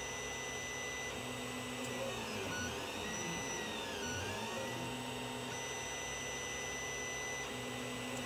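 Creality CR-10 3D printer printing: its stepper motors whine at steady pitches as the print head travels, over a steady fan noise. About halfway through, one whine dips in pitch and rises again.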